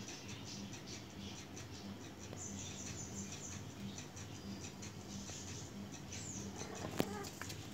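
Rapid high-pitched chirps and ticks, with a brief high trill about two and a half seconds in, over a low hum that pulses about twice a second. One sharp click comes near the end.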